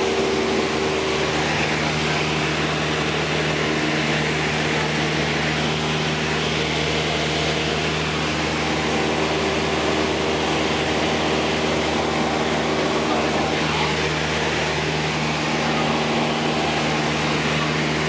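A light aircraft's engine and propeller running steadily in cruise, heard inside the cabin as an even drone of several low tones over a constant rush of air.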